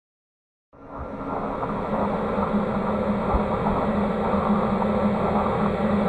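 A moment of dead silence, then about a second in a steady, dark droning hum with hiss fades in and holds: an ambient sound bed under a title card.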